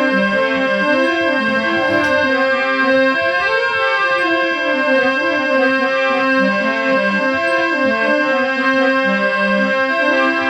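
Instrumental interlude of a Rajasthani folk song: a keyboard instrument plays a stepping melody of held notes over a steady drone.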